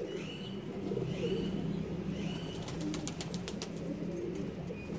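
Domestic pigeons cooing continuously in a loft, a low murmuring coo throughout. A few short high chirps come in the first two seconds, and a run of sharp clicks about three seconds in.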